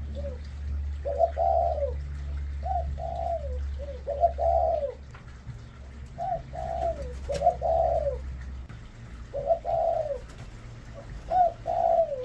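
Spotted dove cooing: repeated phrases of several short, soft notes, each falling slightly in pitch, with a new phrase every two to three seconds. A steady low hum runs underneath and stops about two-thirds of the way through.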